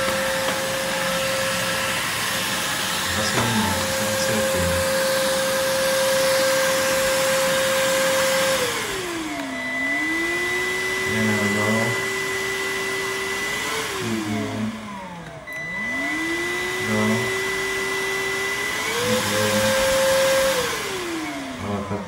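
Cordless stick vacuum's motor running with a steady high whine, then changing speed as its power settings are switched: from about eight seconds in the pitch falls, settles lower, winds down nearly to a stop around fifteen seconds, climbs back up to the high pitch, and falls again near the end.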